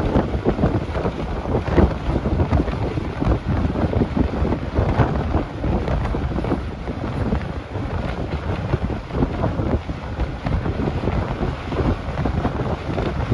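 Steady rumble of a moving bus, with wind buffeting the microphone.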